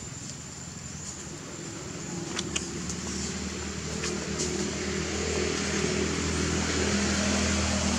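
A motor vehicle's engine running with a low, steady hum that grows louder over the second half, as if approaching. A few sharp clicks come a couple of seconds in.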